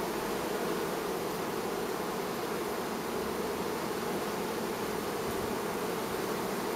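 A mass of honey bees buzzing close around a hive entrance: a dense, steady hum.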